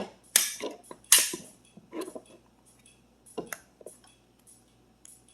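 Aftermarket base plate extension being slid by hand onto a Glock magazine body against the compressed spring: a series of sharp clicks and small clatters, loudest in the first second and a half, then sparser, fainter ticks.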